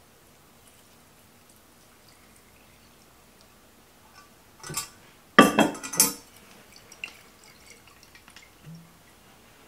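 A stainless steel saucepan set down with a short metallic clatter of several quick knocks, after a lighter knock just before. Then a few light clicks as the cap is twisted off a glass bottle.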